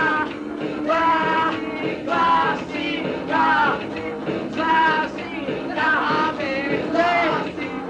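Lo-fi punk band music recorded on a dictaphone: short sung phrases repeating about once a second over steady instrument tones.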